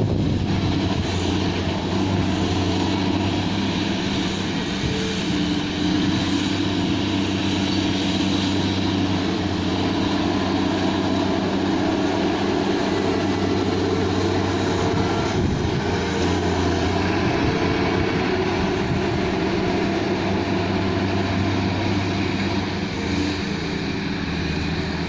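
Hydraulic excavator's diesel engine running steadily, growing louder and easing again in stretches as it works under load.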